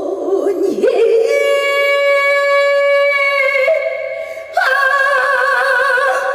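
A woman singing a Korean trot song live, holding two long notes, the first steady and the second with a wide vibrato.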